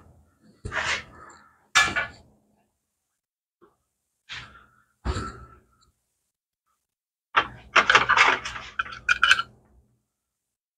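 Handling noise from work on the motorcycle's wiring: a series of short knocks and rattles of small parts and tools, in separate bursts, then a denser run of them about seven seconds in that lasts two seconds or so.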